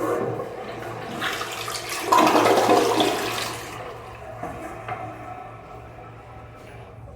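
Toto Drake gravity-fed toilet flushing: the rush of water builds and is loudest about two seconds in, then dies down after about four seconds to a quieter steady run of the tank refilling.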